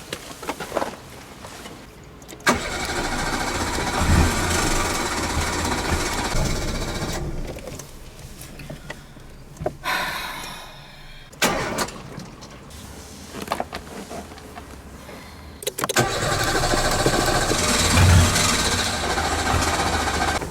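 Citroën Saxo's starter motor cranking the engine in two long spells of about five seconds each, as the car fails to start. Between the spells there are quieter stretches with a few short knocks and clicks.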